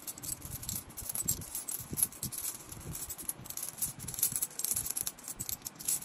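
Loose metal coins clinking and jingling in quick, irregular clicks as several hands sift and sort through a large pile of coins.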